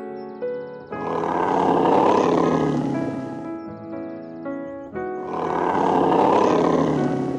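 Soft piano music with two long, rough animal roars laid over it, each about two and a half seconds long, swelling and then fading.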